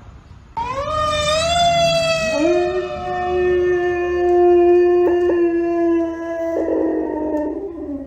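Dog howling: one long drawn-out howl that starts about half a second in, rises, then holds steady. A second, lower howl joins about two seconds in and carries on alongside it.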